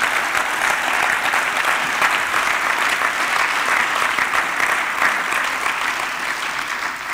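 Audience applauding steadily in a hall, easing off slightly near the end.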